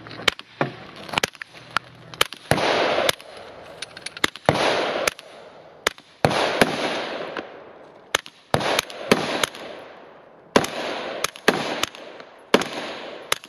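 Suppressed CZ Scorpion EVO 3 S1 9mm pistol firing a long string of single semi-automatic shots at an uneven pace, at times several a second. Several shots are followed by a longer echoing rush of about half a second.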